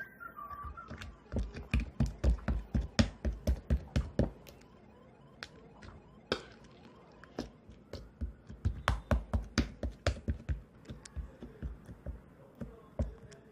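Crunchy slime being squeezed and poked by hand, giving sharp clicking pops: two quick runs of rapid pops with scattered single ones between.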